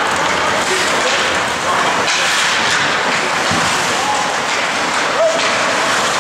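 Ice hockey rink ambience during play: a steady hiss of skates scraping the ice with spectators' voices in the background, and a brief shout about five seconds in.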